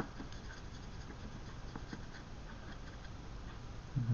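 Faint, irregular scratching and light tapping of a fine paintbrush's bristles dabbing paint onto a rough, textured resin diorama base.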